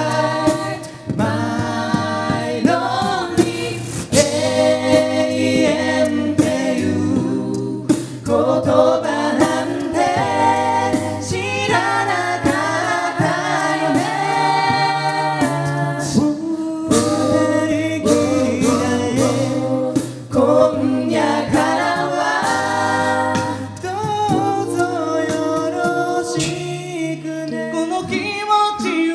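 An amplified mixed a cappella group of male and female voices singing in close harmony, with a regular beat of vocal percussion underneath.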